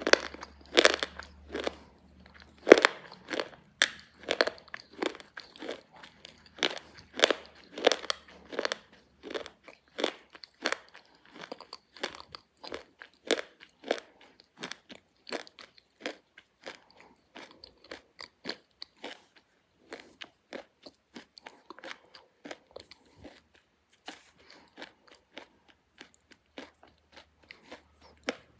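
Slate pencil being bitten and chewed close to the microphone: a run of sharp, brittle crunches, about two a second, loud at first and growing softer and sparser as the pieces are ground down.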